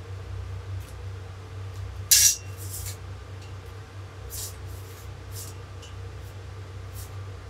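MIG welder laying short tack welds: about five brief hissing bursts, the first, about two seconds in, the loudest, over a steady low hum.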